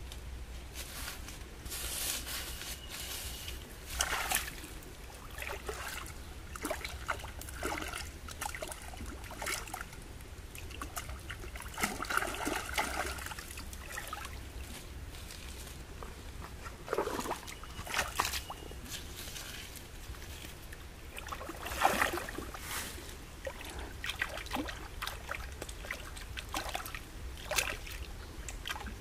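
Shallow stream water sloshing and splashing irregularly as hands work and rinse in it.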